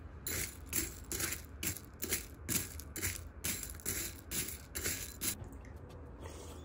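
Dry protein cereal puffs and corn flakes crunching in a regular run of about a dozen crisp crunches, roughly two a second, which stop about five seconds in.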